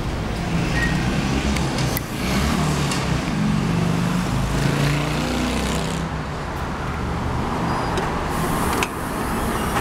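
Steady low rumble of a motor vehicle engine running, with street traffic.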